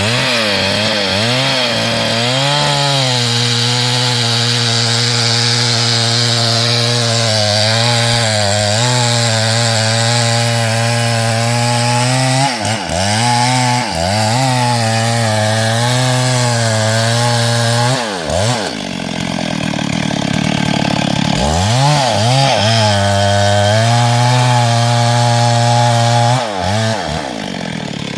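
STIHL MS382 two-stroke chainsaw running at high revs as it cuts through hardwood, the engine note wavering under the load of the cut. The revs dip briefly a few times, stay lower for a few seconds about two-thirds of the way in, then climb back for another cut and drop off near the end.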